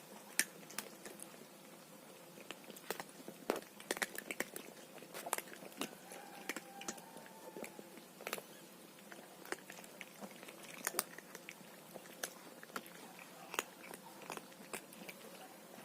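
Cat eating dry food, with irregular sharp crunches as it bites and chews the kibble.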